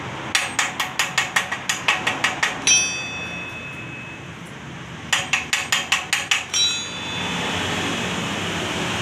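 Two quick runs of light metal-on-metal taps, each ending in a short ringing clink. About seven seconds in, a steady hiss and crackle begins: a small stick arc welder striking up on a leaking motorcycle exhaust.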